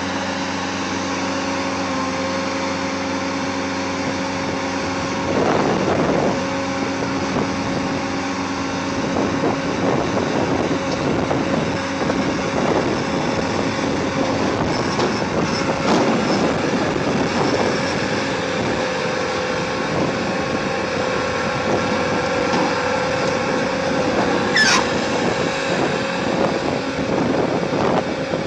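Bobcat skid-steer loader with a wheel-saw attachment, its diesel engine running steadily with a constant hum as it manoeuvres. A brief high squeak about 25 seconds in.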